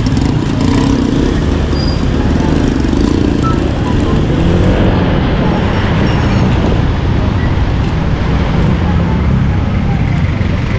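Motor scooter riding slowly through city traffic: its engine running under steady road and traffic noise, with other vehicles passing close by.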